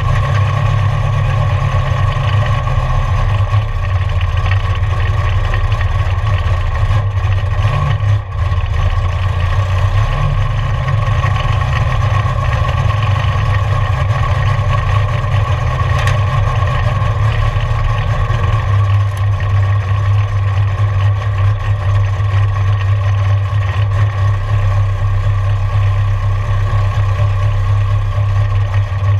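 Camaro's engine running at low revs, heard from inside the cabin as the car rolls slowly, with a brief dip in loudness about eight seconds in.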